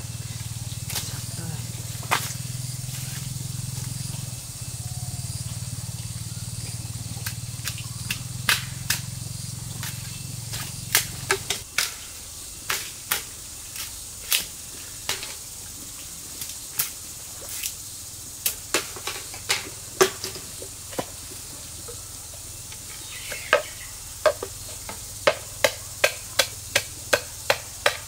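Machete blade chopping and cutting into green bamboo: sharp, irregular knocks that settle into a steady run of about two strikes a second near the end.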